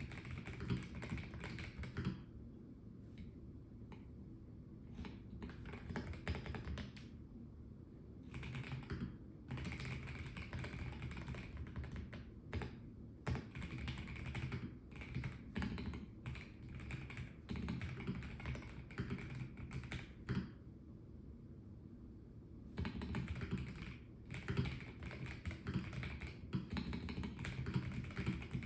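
Melgeek Mojo84 plastic mechanical keyboard being typed on in quick runs of keystrokes, broken by short pauses.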